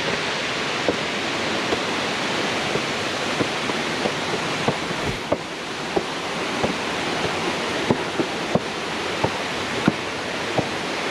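Steady rushing roar of Khandadhar waterfall's falling water, with scattered short clicks over it.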